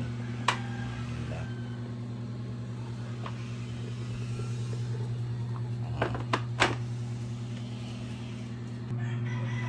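A steady low hum throughout, with a few sharp clicks and knocks from a stainless steel electric kettle being handled: one about half a second in and three close together around six seconds in.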